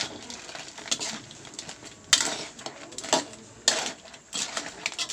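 A metal spatula scraping and knocking against a steel wok while stirring crabs in sauce: irregular scrapes and clanks, the loudest about two seconds in and again a little later.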